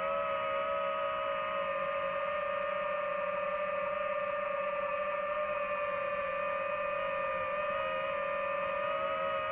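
Multirotor drone's electric motors and propellers whining steadily at a high pitch, one constant tone with a slight waver in pitch.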